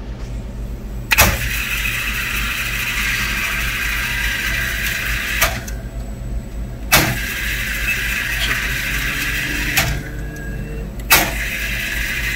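Carousel vending machine's motor turning its round shelves: two whirring runs of a few seconds, each starting and stopping with a sharp click, and another click near the end. Under it runs the machine's steady low hum.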